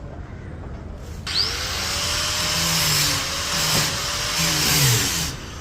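Paint spray gun hissing in one continuous burst, starting abruptly about a second in and cutting off near the end, as colour polish is sprayed onto wooden chairs.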